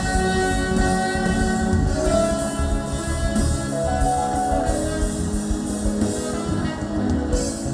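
Live worship band music: a drum kit and bass keeping a beat under held chords, with no words sung.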